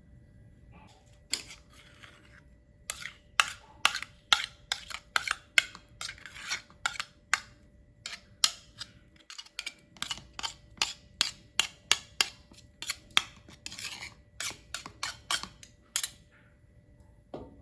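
A cooking utensil scraping and tapping against a pan or container in quick strokes, about two or three a second, with a short pause about halfway through.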